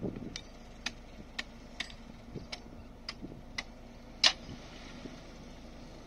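Sharp knocks about two a second, with one much louder strike about four seconds in, over a faint steady low hum: the tailgate latches at the rear of a loaded dump truck being knocked open before tipping.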